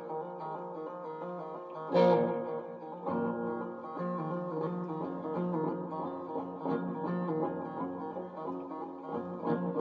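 A guitar played solo: single notes and chords picked in a loose run, with a sharp strum about two seconds in and another near the end.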